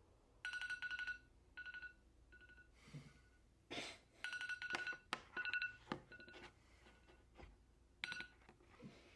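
Phone alarm going off: a pitched electronic beep in short repeated bursts of rapid pulses, with a few rustles and sharp knocks of movement in between.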